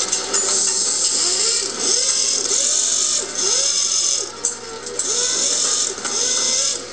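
Recorded stock-car race sound effects from a diecast display's small built-in speaker: engine noise coming in repeated loud surges of about a second each, with the pitch rising and falling.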